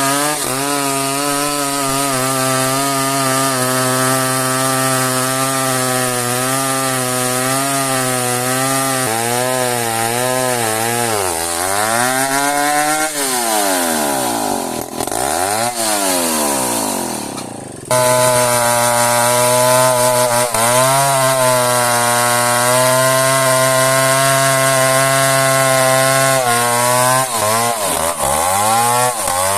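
Chainsaw cutting through an old merbau hardwood log, its engine running under load. The pitch sags and picks back up several times, dropping deepest about fourteen seconds in. Its sound jumps abruptly back to full speed about eighteen seconds in.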